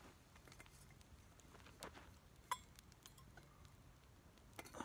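Near silence, with a few faint scattered clicks and light clinks, the strongest near the end.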